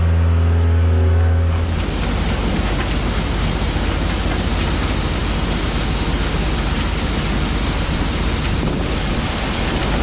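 A skid steer's engine runs steadily for the first couple of seconds; then a steady rushing hiss of shelled corn pouring from the White 1210 corn sheller's spout into a steel wagon box, over the running sheller.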